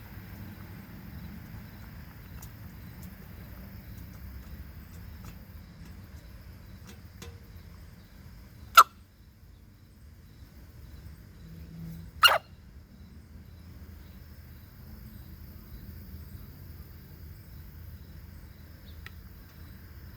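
Silkie chicken sneezing twice, two short sharp sneezes about three and a half seconds apart, brought on by eating fast. Faint scattered ticks can be heard between them.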